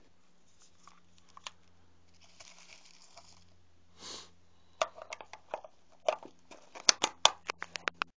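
Rustling, then a run of sharp plastic clicks and snaps as a small clip-lock plastic box, used as a geocache container, is handled and its hinged latch flaps worked, with the two loudest snaps near the end.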